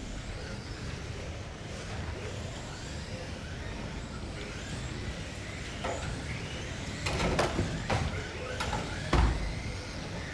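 Electric 1/12-scale GT12 RC cars running laps on a carpet track, a steady whir with faint high whine. From about six seconds in there are several sharp knocks, the loudest near nine seconds.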